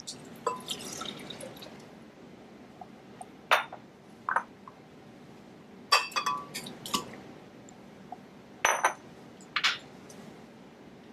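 Juice poured into a glass blender jar, then a scattering of sharp clinks and knocks on glass as banana pieces and other ingredients are dropped in by hand.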